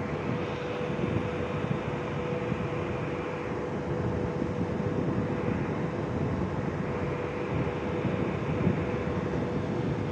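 Pesa Elf (EN76) electric multiple unit standing at the platform, its onboard equipment running with a steady hum and one held mid-pitched tone over a low rumble.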